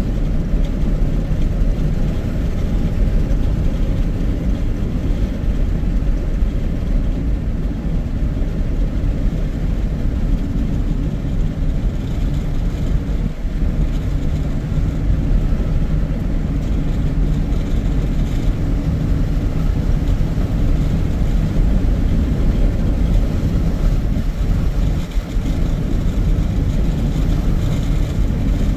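A car driving along a highway at a steady pace: an even, low rumble of road and engine noise that holds steady throughout.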